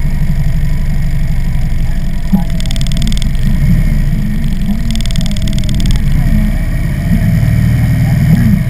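Harley-Davidson V-twin motorcycle engine running steadily while riding at road speed, a deep continuous rumble.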